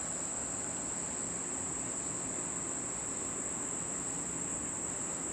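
Insects, likely crickets, trilling as a continuous, steady high-pitched drone that does not break or change.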